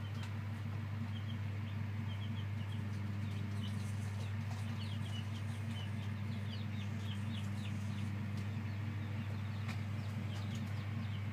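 Chicks peeping, many short high cheeps in quick succession, thickest in the middle of the stretch and again near the end, over a steady low hum.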